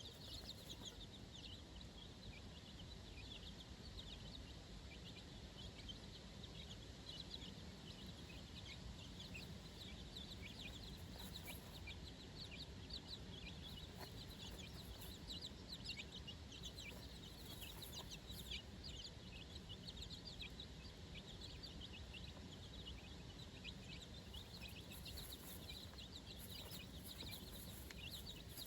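A brood of four-day-old domestic chicks peeping continuously: many short, high peeps overlapping one another, faint.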